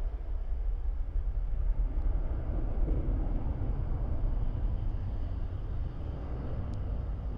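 Boeing 777-300ER's GE90 jet engines giving a steady low rumble as the airliner rolls out along the runway after touchdown. The rumble eases slightly near the end.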